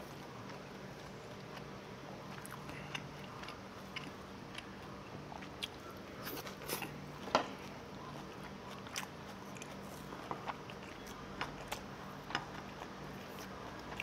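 A person eating: faint chewing and biting, with scattered small clicks and taps of utensils against dishes over a low steady hum.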